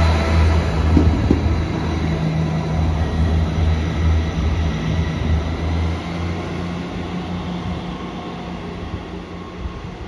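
Class 158 diesel multiple unit's underfloor diesel engines running under power as it pulls away, a steady low drone that fades as the train draws off into the distance. A couple of short knocks come about a second in.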